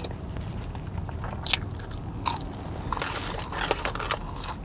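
A person biting into and chewing a seasoned french fry, heard as a scatter of short crisp clicks and mouth sounds, thickest in the second half.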